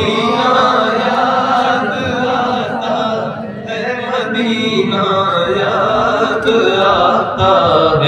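A man singing devotional Urdu verse through a microphone, drawing out long, wavering melodic notes in a chant-like style.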